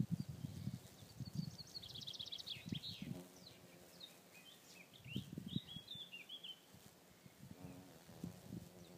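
Small birds singing, with quick chirps and trills in the middle, over irregular low rumbling on the microphone.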